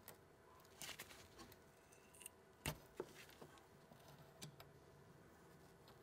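Faint, scattered clicks and light scrapes of a metal pick working inside the A/C evaporator line as the old orifice tube is fished out, the sharpest click about two and a half seconds in.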